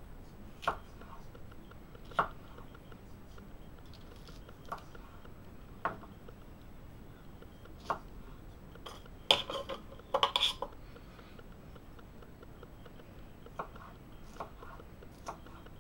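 Condor Nessmuk knife cutting small sweet peppers on a wooden cutting board: sharp knocks of the blade meeting the board, spaced a second or two apart, with a quicker cluster of knocks about halfway through.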